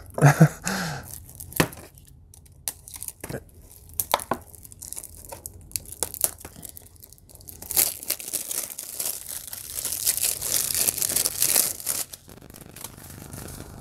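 Plastic shrink wrap on a Blu-ray case being slit with a thumbnail and torn off by hand: a few sharp scratches and clicks, then a steady crinkling tear from about eight to twelve seconds in.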